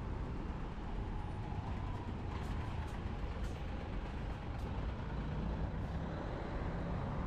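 City road traffic: a steady low rumble of passing vehicles, with a few light clicks about halfway through.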